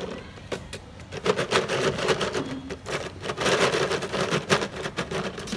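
Dry pieces rattling and clattering inside a clear jar as a hand rummages in it and tips it, a fast irregular stream of clicks that gets busier after about a second.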